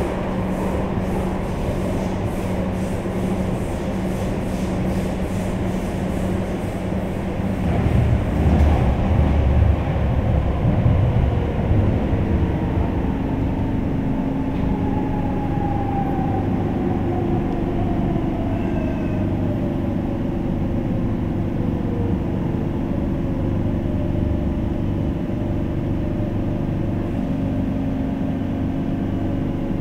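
Madrid Metro Line 10 train running, heard from inside the passenger car: a steady hum, then a louder low rumble about eight seconds in. Midway a whine slides down in pitch over several seconds over steady lower tones.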